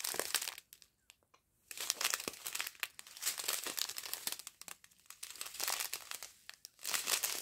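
Small clear plastic bags of diamond painting resin drills crinkling as they are handled and flipped through one after another, in irregular crackling bursts with a short pause about a second in.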